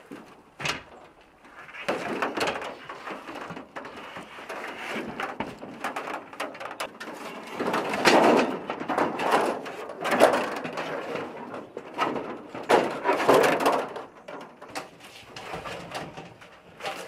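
A large thin aluminum interior wall panel flexing, rattling and bumping against the trailer's doorway and shell as one man wrestles it inside, with several louder clattering surges in the second half.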